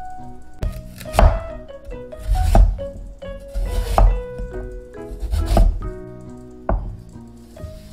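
A broad cleaver-style kitchen knife chopping through raw sweet potato onto a wooden cutting board: several separate chops, over background music.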